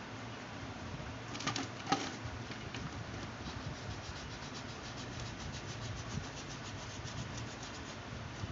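Felt-tip sketch pen rubbing over a plastic bottle in quick short strokes as a design is drawn, after a couple of sharp clicks about one and a half to two seconds in as the pen is handled.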